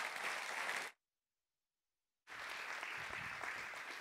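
Church congregation applauding. The sound cuts out to dead silence for just over a second, about a second in, then the applause resumes.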